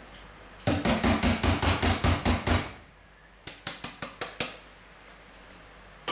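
Block of cheddar cheese grated on a stainless steel box grater on a wooden chopping board. First comes a quick run of about ten strokes, some five a second, then a shorter, fainter run of strokes.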